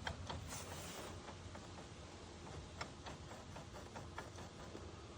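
Faint scattered light clicks, a few sharp ticks spread across several seconds, over a low steady hum.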